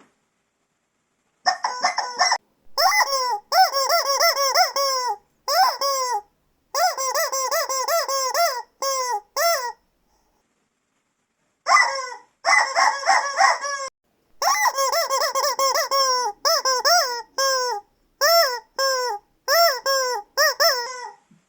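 Rapid runs of short, high squeaks, each rising and falling in pitch, coming in bursts of several a second that stop abruptly into silence, with a pause of about two seconds near the middle.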